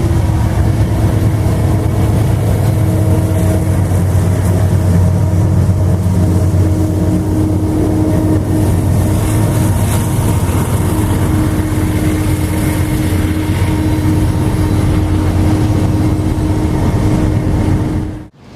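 Diesel freight locomotive running close by at steady power, a loud, even engine drone with a held hum over it. It cuts off suddenly near the end.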